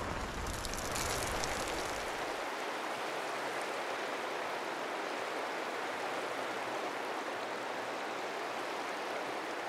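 Steady, heavy rain, an even wash of water noise; the deep low rumble under it drops away about two and a half seconds in.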